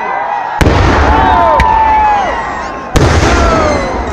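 Festival fireworks going off: two heavy blasts, about half a second in and near three seconds in, each followed by a long rumble. Voices shout over them.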